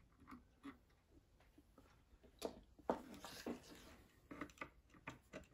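Faint scattered clicks and light knocks of hands handling a fuel dropper and a handheld electric starter at a small model-engine test stand. The loudest knock comes about three seconds in, and a quick run of clicks follows near the end.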